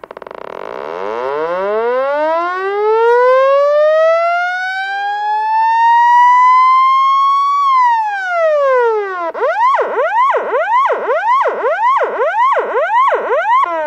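Police siren sounding a long wail that rises slowly for about eight seconds, then falls. Then it switches to a fast yelp of rapid up-and-down sweeps, a little under two a second.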